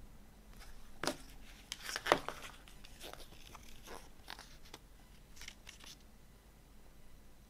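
Paper pages of a CD booklet turned by hand: a series of crisp paper rustles and flicks. The loudest are about one and two seconds in, followed by lighter handling sounds.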